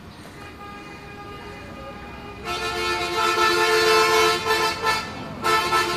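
A vehicle horn honking: one long blast starting about two and a half seconds in, broken briefly near its end, then a second short toot near the end, with a fainter horn sounding before it.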